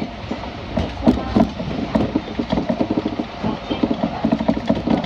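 Kintetsu Nara Line electric train running, heard from inside the carriage: a steady low rumble with a busy, irregular clatter of short knocks from the wheels and car body.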